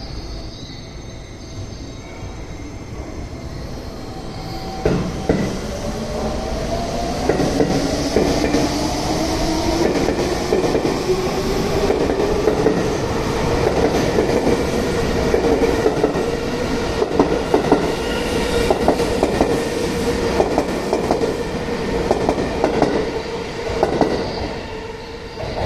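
Seibu 20000-series electric train pulling away: the traction motors' whine rises in pitch as it accelerates, then holds steady. Through the second half the wheels click irregularly over rail joints as the cars pass close by.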